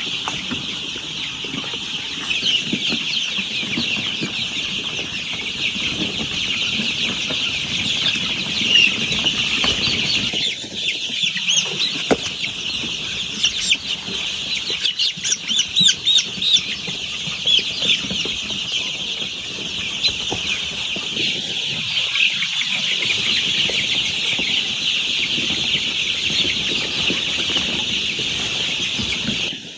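A flock of ten-day-old black chicks peeping in a dense, continuous chorus, with wing flutters and sharper clicks now and then, most between about 12 and 17 seconds in.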